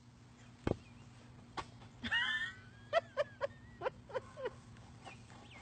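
A dog whining and yelping: a thump, then a high wavering cry about two seconds in, followed by a quick series of short falling yelps.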